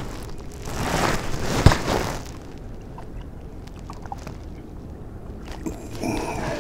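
Wind gusting over the microphone and water lapping at a kayak, with one short sharp splash about one and a half seconds in as a small speckled trout is tossed back into the water.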